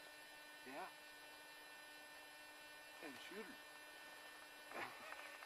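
Near silence: a steady electrical hum in the recording, with a few faint, brief murmurs of voice about a second in and again after three seconds.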